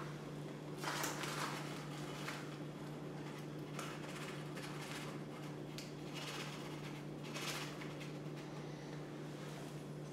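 Steady electric hum of an air pump running, with a few faint rustles and scrapes from a measuring spoon scooping powder out of a packet.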